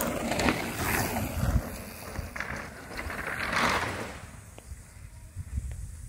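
Canyon Spectral 29 mountain bike rolling along a dirt trail: tyre noise and knocks and rattles from the bike over the ground, with wind rushing on the microphone. The noise swells and fades and is quieter near the end.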